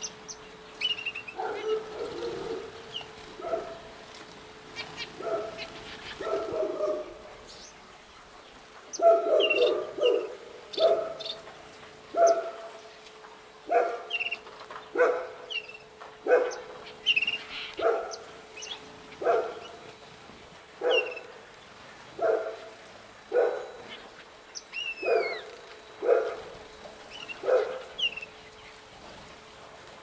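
A dog barking over and over, a few scattered barks at first, then settling into a regular bark about every second and a half. Faint chirps from small cage birds in the aviary and a steady low hum sit beneath.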